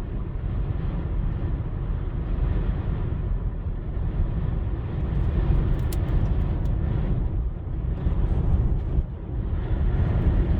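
Steady low rumble inside a car's cabin, the car's running noise mixed with strong wind buffeting it.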